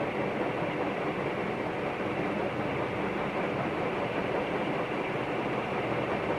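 Canarm Pleasantaire CP56T 56-inch industrial ceiling fan running steadily: an even rush of air from the blades with the motor's hum beneath.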